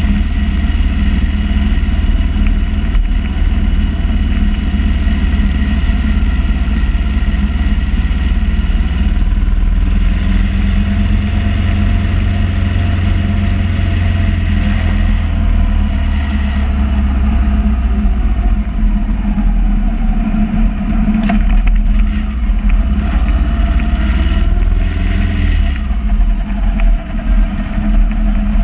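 Motorcycle engine running steadily at road speed, then easing off near the end as the bike slows.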